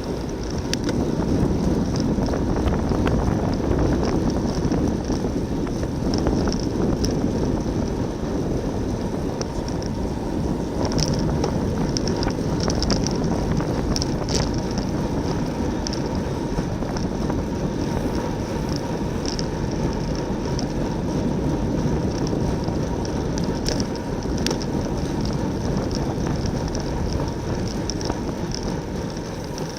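Wind rushing over the microphone of a racing cyclist's bike-mounted camera, with tyre and road noise, as the bicycle rides at speed in a pack. Faint high chirps come and go throughout.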